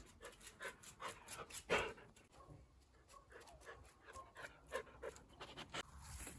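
An animal panting in a run of short, quick breaths, the loudest just under two seconds in.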